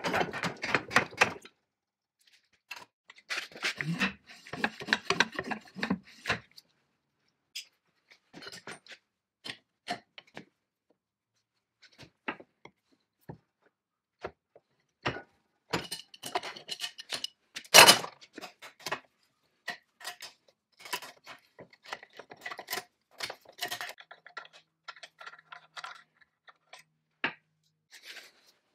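Adjustable wrenches clinking and scraping against steel nuts and the rammer's metal parts as they are loosened, in scattered short clicks and rattles with pauses between, and one sharper metal knock a little past the middle.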